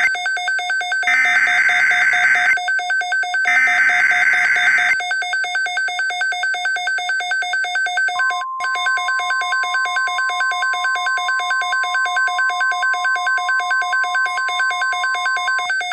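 Emergency-alert tones of a mock NOAA Weather Radio broadcast: three short bursts of warbling digital header data, over a pulsing, buzzy alarm tone that runs throughout. About eight seconds in, a steady single-pitch weather-radio alert tone joins it, and both cut off suddenly just before the end.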